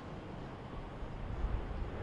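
Boat engines running out on the water in a steady, noisy hum, with wind on the microphone; a low rumble swells briefly about a second in.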